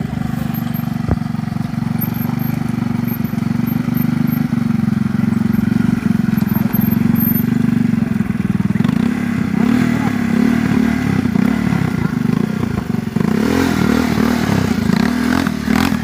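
ATV engine running at a steady speed, then from about halfway revving up and down repeatedly as the throttle is worked.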